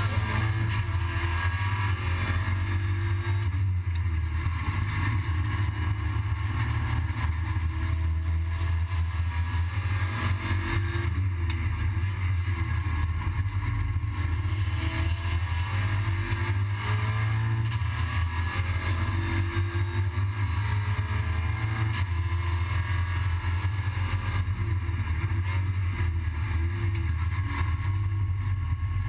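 SEAT Leon Supercopa race car's turbocharged four-cylinder engine under racing load, heard from inside the cabin. It is a steady, loud, low drone, with the revs rising and falling through the gears.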